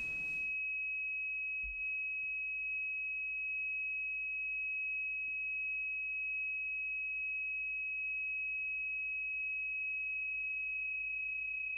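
A single steady, high-pitched pure tone, held without change.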